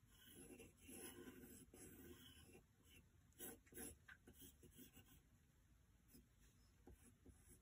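Faint scratching of a pencil on paper as short sketching strokes are drawn, with two sharper strokes a little past the middle.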